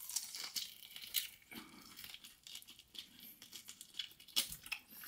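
Quiet, irregular crackling and tearing as saucy barbecue ribs are pulled apart and bitten into.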